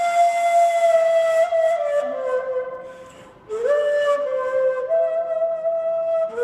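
Solo Mansur ney (Turkish cane end-blown flute) playing a slow melody in long, breathy held notes. The phrase steps down and fades to a brief breath pause about three seconds in, then a new phrase begins with an upward slide into a held note.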